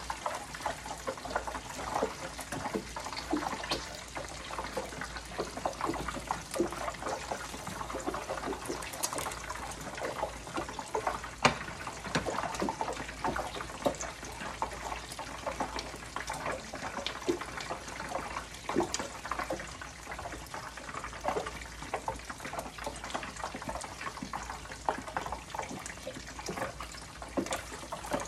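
Battered sandwiches deep-frying in a pan of hot oil, sizzling and crackling steadily, with scattered sharp clicks from metal tongs lifting them out.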